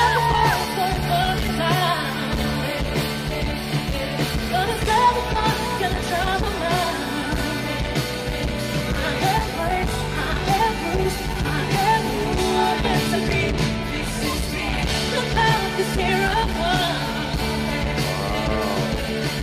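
A woman singing live with a full band backing her: electric guitar, keys and drums, a pop-rock concert performance. Her voice wavers with vibrato on long held notes over a steady band.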